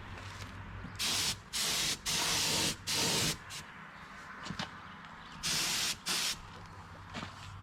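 Air spray gun spraying primer in short hissing bursts: a run of four quick trigger pulls in the first few seconds, then two more a couple of seconds later.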